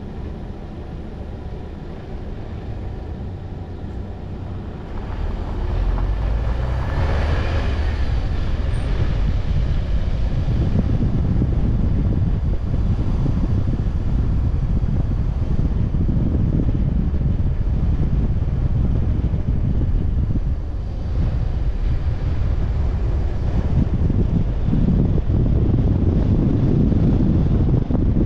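Car driving along the road: a steady low rumble of road and engine noise with wind buffeting on the microphone. It grows louder about five seconds in.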